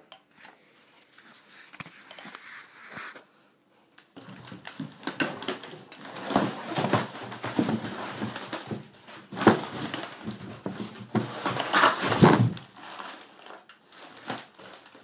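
Styrofoam packing and cardboard box rubbing, scraping and squeaking in irregular bursts as the 3D printer is worked up out of its box, after a sharp click at the start. The handling grows busier about four seconds in and stops shortly before the end.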